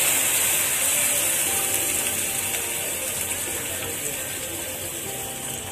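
Tamarind water sizzling and crackling as it hits the hot oil and fried masala in a nonstick pan, stirred in with a silicone spatula; the sizzle slowly dies down.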